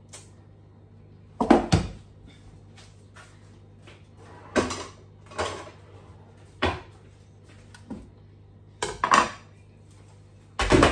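Metal roasting tin and crockery clattering: about six separate sharp knocks and scrapes spread out over several seconds, as the tin is handled at the oven, with a low steady hum underneath.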